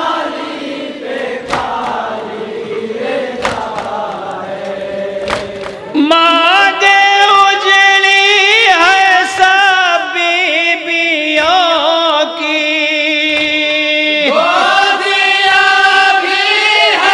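Noha recited by men's voices: a softer group chant for the first few seconds, then a loud lead voice about six seconds in, singing long, wavering held notes. Dull thuds of hands striking chests in matam keep time about every two seconds.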